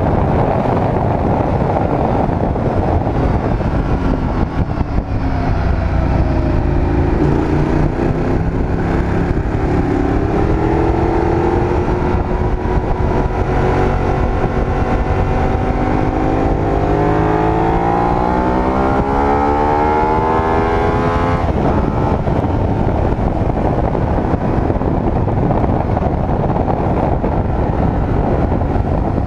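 Ducati L-twin superbike at speed, heard onboard under loud wind rush on the microphone. The engine's note climbs in pitch under acceleration from about five seconds in and cuts off suddenly about 21 seconds in.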